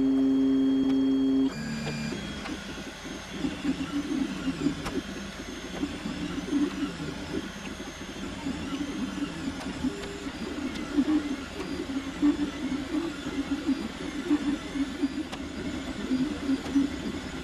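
Stepper motors of an Anycubic FDM 3D printer moving the print head and bed while printing the first layer. A steady two-note whine cuts off about a second and a half in, then the motors whir in quick changing notes with repeated high rising-and-falling chirps as the nozzle traces the outline.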